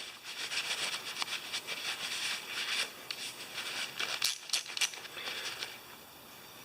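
Craftsman VK-44811 3/8-inch ratchet being worked back and forth, its pawl clicking rapidly in two runs with a short pause between. The mechanism has just been cleaned of old grease and oiled, and it now ratchets without catching.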